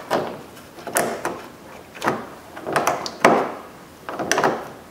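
Speed nut being tightened onto a plastic grille stud with a 13 mm tool, in short scraping strokes about once a second, the loudest a little past three seconds in.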